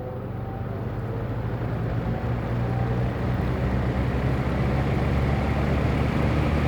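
1971 JCPenney Pencrest 50 (Lakewood S-21) metal-bladed box fan starting up on low speed: a steady motor hum with a rush of air that grows steadily louder as the blades come up to speed.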